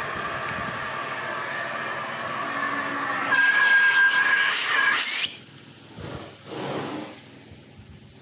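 Truck-mounted carpet-cleaning wand and hose pulling air: a steady whine, which grows into a louder hiss about three seconds in and cuts off abruptly just after five seconds, followed by two short hissing bursts.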